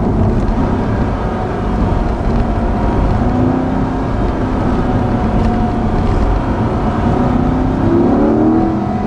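Chevrolet Corvette C8 Stingray's pushrod V8 (6.2-litre LT2) heard from inside the cabin while accelerating, its engine note climbing in pitch near the end. The stock exhaust is very quiet under a heavy low rumble.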